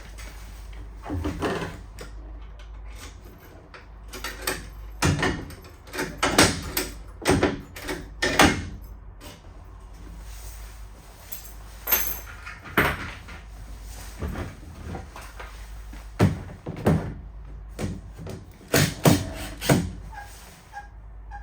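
Cabin door hardware being worked: a series of sharp knocks, clicks and rattles in several clusters, typical of a door being opened, shut and its lock tried, over a steady low hum.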